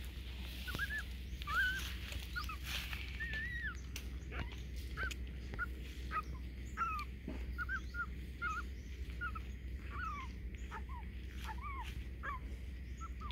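Newborn puppies squeaking and whimpering while they suckle, a steady run of short, high, bending squeaks a couple of times a second.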